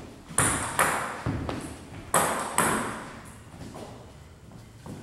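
Table tennis rally: the celluloid ball clicking sharply off the paddles and the table, about five quick strokes in the first three seconds and then a few fainter taps, each click echoing in a large hall.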